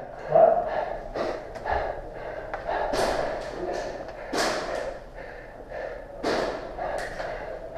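Airsoft guns firing single shots and BBs striking, sharp cracks at irregular intervals, each with a short echo.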